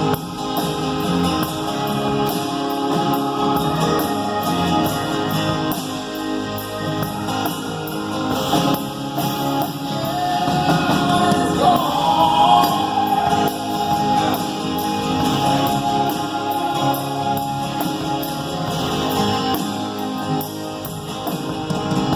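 Rock band playing live with guitar and singing, recorded in the concert hall.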